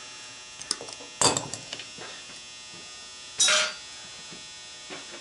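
Metal hand tools set down on a workbench: a few light clicks, then two sharp clanks about a second and three and a half seconds in, the second ringing briefly. A steady electrical buzz sits underneath.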